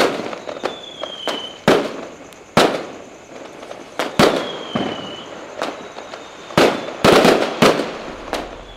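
Fireworks going off: a string of sharp bangs, several in a rapid cluster near the end, with a couple of faint falling whistles between them.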